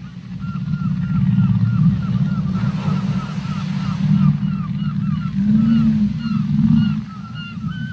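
Whale calls underwater: a rapid series of short chirping calls, about three or four a second, over a steady low rumble of water noise, with a couple of brief low moans in the second half.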